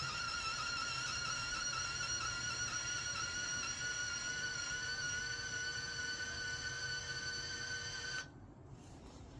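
Wire-feed motor of a MIG welder running steadily with the torch trigger held, a high whine with a slight warble that stops about eight seconds in. No wire emerges from the torch tip, a sign of a feed problem that the owner blames on too much tension.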